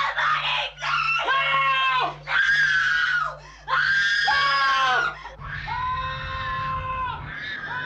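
A person screaming: a series of shrill, anguished screams about a second each that sag in pitch at the end, over a low throbbing pulse about twice a second. About two-thirds of the way in it gives way to a long, steady held cry over a low rumble.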